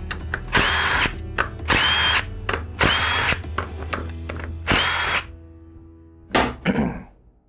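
Cordless impact wrench run in four short bursts of about half a second each, each spin-up ending in a rising whine, backing out the bolts around the edge of a Toyota U241E automatic transmission's valve body.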